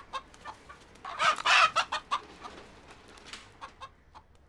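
Broiler rooster squawking while being chased: one loud harsh squawk a little after a second in, among short clucks and light knocks.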